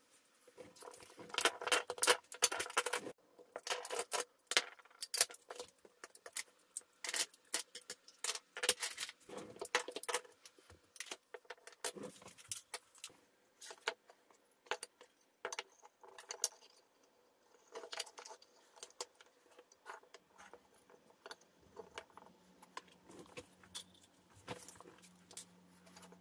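Spring clamps being taken off glued wooden parts and set down on a table: repeated clicking and clattering of plastic and metal clamps, densest in the first half. Later come sparser, lighter knocks as wooden pieces are laid out.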